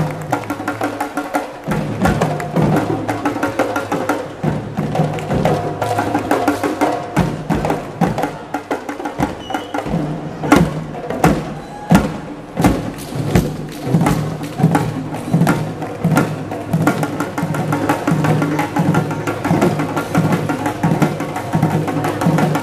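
Several Assamese dhol barrel drums played together in a fast rhythm, struck with sticks and hands, with a few especially hard strokes about halfway through.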